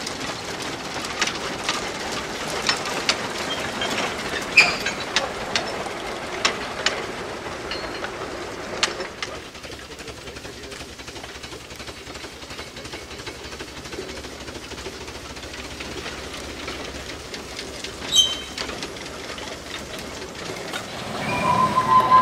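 Replica Climax geared steam locomotive and its log cars rolling along the track, wheels and running gear clicking irregularly over a steady running noise. About nine seconds in it drops to a quieter steady running, then grows louder again near the end.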